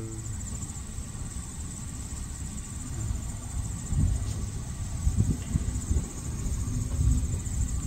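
Steady high-pitched trilling of insects, over a low rumble of wind on the microphone that comes in gusts in the second half.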